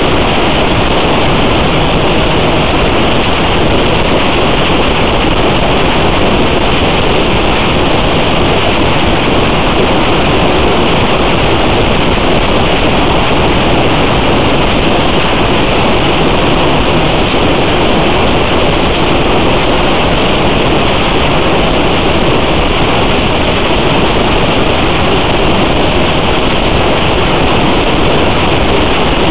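Loud, steady rushing noise with no tone, rhythm or change in it: the hiss on the audio track of a fixed-wing FPV flight recording.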